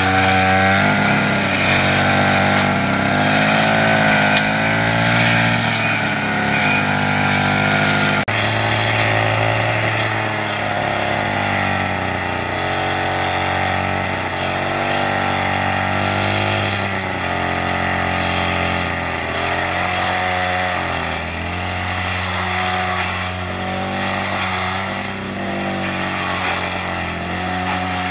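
A small engine running steadily, its pitch gently rising and falling, with an abrupt break about eight seconds in.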